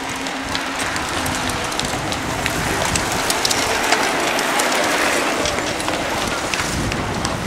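A large group of mountain bikes rolling past on asphalt: a steady hiss of tyres with many scattered clicks from chains and freewheels, swelling in the middle as the pack goes by.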